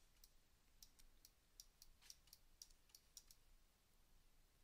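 Near silence with faint, irregular clicks from computer input, about three a second.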